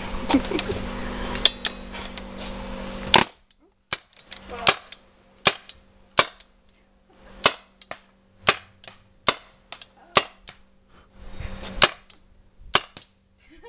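Paintball marker firing a string of single shots: about a dozen sharp pops, irregularly spaced half a second to a second apart, starting about three seconds in. Before the first shot there is a steady background noise that cuts off suddenly.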